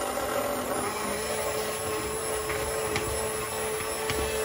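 Immersion blender running in a saucepan, puréeing butternut squash soup: a steady motor whine over the churning of the soup, settling to an even pitch about a second in.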